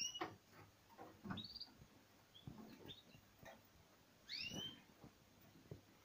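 Small caged finches giving a few short whistled calls, each note rising and bending over. The clearest calls come at the start and about four seconds in, with soft knocks in between.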